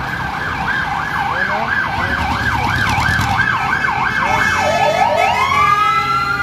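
Emergency vehicle siren on the fast up-and-down yelp, about two to three sweeps a second. About five seconds in it switches to a slow rising wail that climbs and holds, over a low rumble of traffic.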